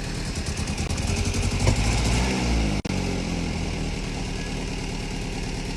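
VW Caddy Mk1 pickup's CIS fuel-injected petrol engine running, freshly restarted after a no-spark no-start fault. It gets louder about a second in, drops back in pitch around two to three seconds in with a brief cut-out, then runs steadily.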